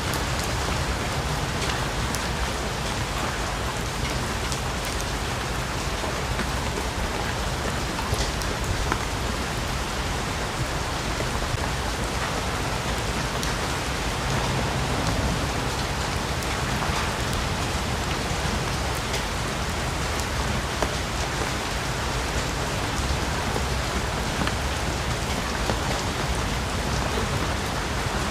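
Steady heavy rain falling through forest, with individual drops pattering from the leaves.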